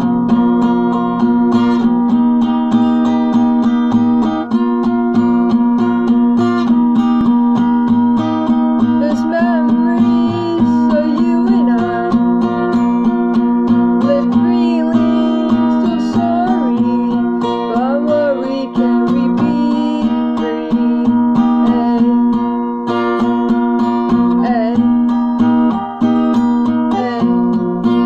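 Acoustic guitar strummed steadily in repeated chords, with a voice singing along through the middle.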